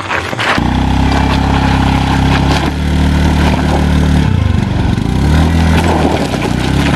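Small motorcycle engine running, its pitch falling and rising a few times as the throttle is worked.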